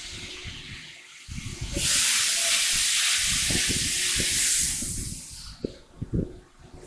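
Compressed air hissing loudly for about three seconds from the pneumatics of a four-spindle CNC nesting machine, with short low knocks underneath, then fading off.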